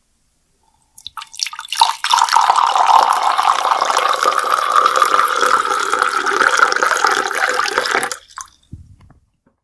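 Water being poured in a steady stream for about six seconds after a splashy start, its pitch creeping up as it goes. It stops abruptly, followed by a few drips and a soft low thump near the end.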